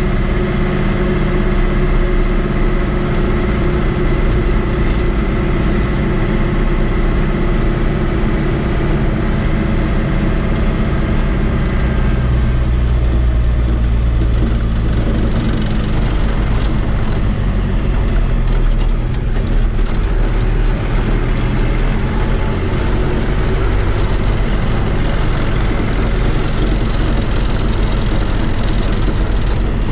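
Fiat 80-90 DT tractor's diesel engine running steadily while driving on the road, heard from inside the cab. The engine note drops and settles lower about twelve seconds in.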